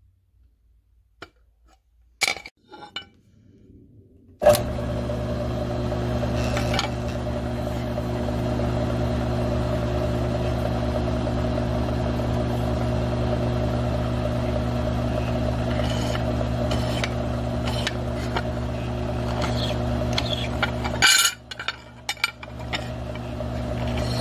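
A few clinks of tooling, then about four seconds in a Grizzly G9972Z mill-drill's spindle motor starts and runs steadily, with a cutter boring into an aluminum plate. Near the end the sound drops away briefly with a few sharp clicks, then the mill runs again.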